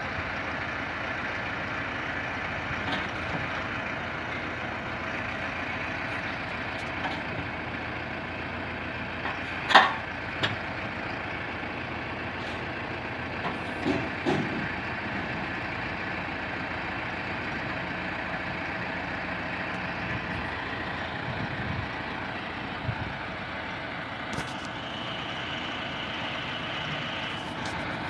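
Diesel tractor engine running steadily as it pulls a tractor-mounted road grader, with one sharp clank about ten seconds in and a few lighter knocks a few seconds later. A thin high whine comes in briefly near the end.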